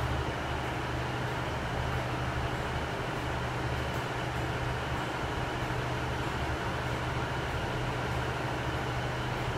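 Diesel multiple-unit passenger train idling at the platform: a steady low engine drone.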